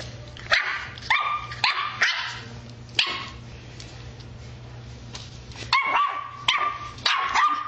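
Westie (West Highland White Terrier) puppy barking in short, high-pitched yaps. A few come in the first three seconds, then a pause, then another quick run near the end.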